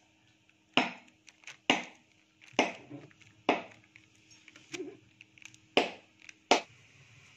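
Tin cans being handled: a series of six sharp knocks and clicks, about one a second, with a few fainter taps between.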